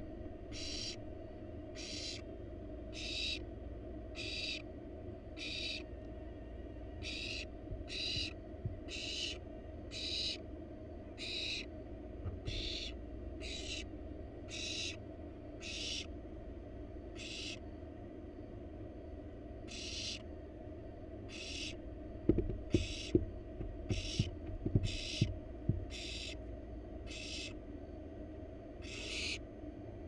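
Barn owl nestlings giving their rasping, hissing begging calls (snores), short and repeated about once a second with brief pauses. About three quarters of the way through comes a cluster of sharp low knocks, the loudest sounds.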